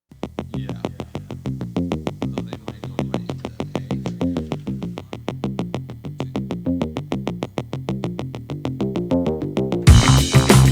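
Background music: a synthesizer track of quick, evenly repeated notes over a moving bass line. About ten seconds in, a louder, fuller section with drums comes in.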